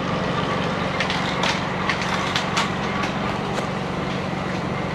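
Steady whirring drone of a bicycle spinning on a stationary warm-up trainer as the rider pedals, with scattered light clicks over it.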